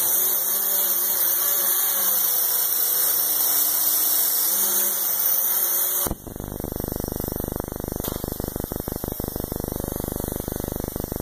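A small toy motor whirring with a steady hiss, its pitch rising and falling a little. About six seconds in the sound changes abruptly to a rapid, buzzing rattle.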